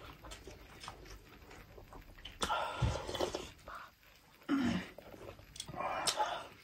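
Close-up mukbang eating sounds from hand-eaten rice and meat: scattered wet lip smacks and chewing, with a brief low hum about two-thirds of the way in.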